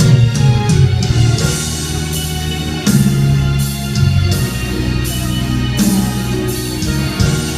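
Instrumental break of a worship song: a full band with guitar and drum kit comes in loudly all at once and plays on, with cymbal strokes about once a second and no singing.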